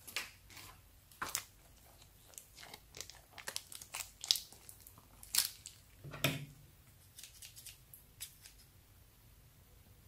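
Thin plastic bag filled with slime crinkling and clicking in irregular sharp crackles as it is handled, with scissors at the bag's corner near the end.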